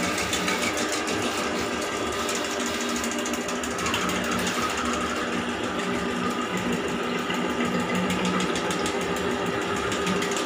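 Electric drain-cleaning machine running steadily, its motor spinning a coiled steel spring cable fed down a clogged bathroom floor drain, with a steady hum and a fast, light rattle from the turning cable.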